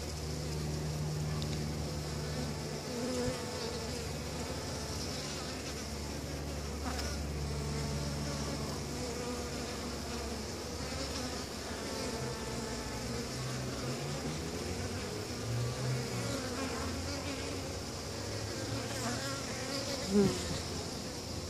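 Honeybees buzzing in flight around the hive entrance. Individual bees hum past the microphone in buzzes that shift in pitch, with one brief louder buzz near the end.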